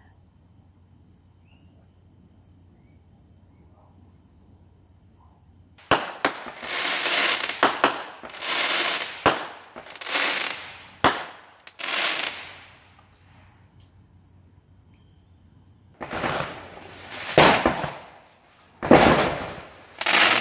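Fireworks going off: after about six seconds of quiet, a run of loud bursts with sharp cracks and crackling, then a short lull and another run of bursts near the end.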